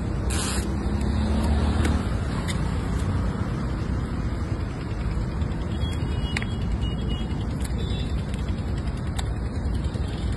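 Steady road traffic noise, with a motor vehicle running close by and getting louder over the first two seconds. A few sharp clicks sound now and then.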